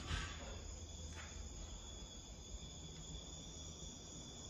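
Faint, steady high-pitched chirring of crickets, with a brief rustle at the start and a faint tick about a second in.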